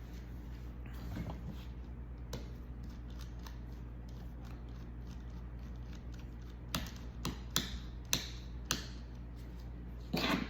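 Small sharp clicks and taps of hand work on a laptop's plastic case with a screwdriver and its screws: a run of about five clicks in the second half, then a louder scrape near the end.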